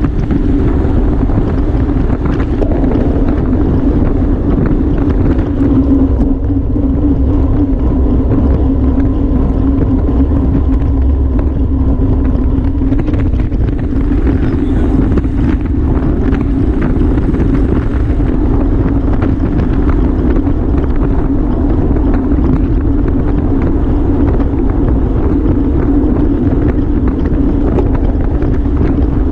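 Wind rushing over the microphone of a camera riding along in a bicycle race at speed: a steady low rumble and hiss that does not let up.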